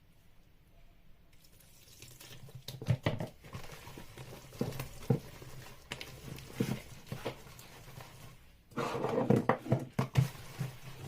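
Wet puff puff batter of flour, yeast and warm water being mixed by hand in a bowl: irregular soft slaps and squelches, with a louder stretch about nine seconds in.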